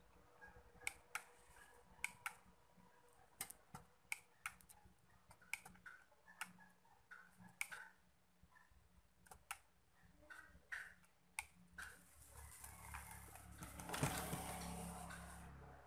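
Irregular light clicks and taps of small tools and electronic parts being handled on a repair bench. Near the end a brief rushing noise swells and fades.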